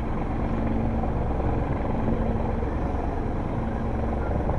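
Steady low drone of motor-vehicle engines, with a constant humming tone underneath.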